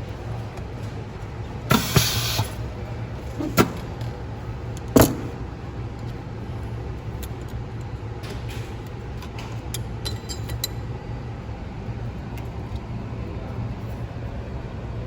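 Sameking OCA lamination machine running its vacuum-and-hold cycle: a steady low hum, a burst of hissing air about two seconds in, then two sharp clicks about a second and a half apart.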